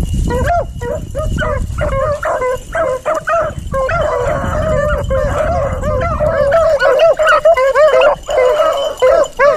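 A pack of beagles baying and yelping as they run a rabbit, several dogs calling at once. The voices overlap thickest in the second half.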